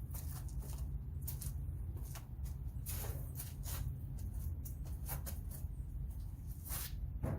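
Packaging rustling and crinkling as parts are lifted out of a box, with scattered light clicks and knocks over a steady low rumble.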